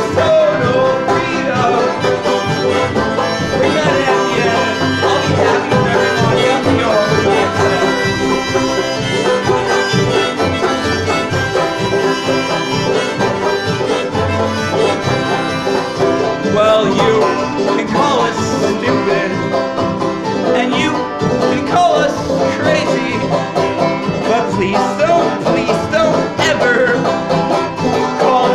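A live string band playing an upbeat bluegrass-style tune: banjo and mandolin picking over guitar and bass, with harmonica.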